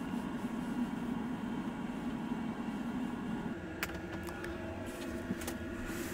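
A steady low hum, with a few sharp clicks. The first click, a little under four seconds in, comes as a hand works a wall-mounted LED light bar.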